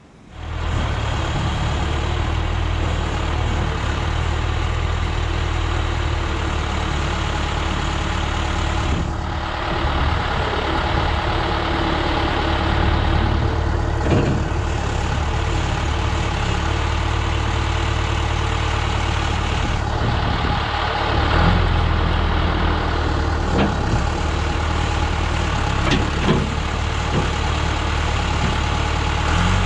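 John Deere 410B backhoe's diesel engine running steadily at a raised throttle, its note dipping and rising a few times as the loader lifts logs on the pallet forks.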